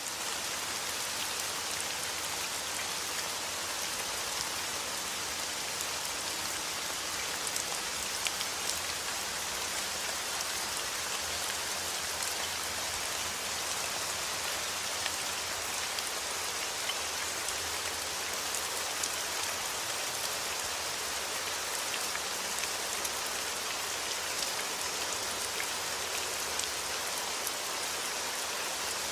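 Steady rain falling: an even hiss with the ticks of single drops scattered through it.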